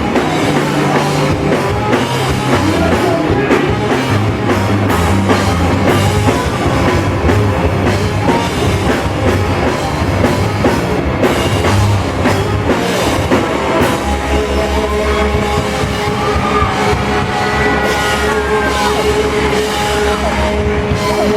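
Loud rock music with a drum kit and guitars. About fourteen seconds in the drumming drops away, leaving a rapid low pulsing note under long held and bending guitar notes.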